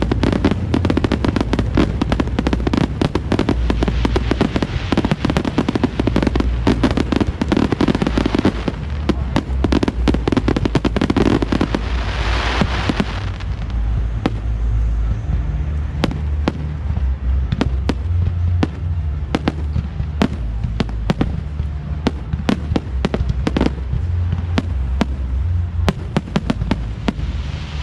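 Fireworks display: a dense barrage of bangs and crackling for about the first half, thinning after about thirteen seconds to separate, spaced bangs.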